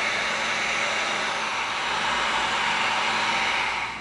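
A heat gun blowing a steady rush of air, typical of heating and shaping EVA foam; it cuts off suddenly at the end.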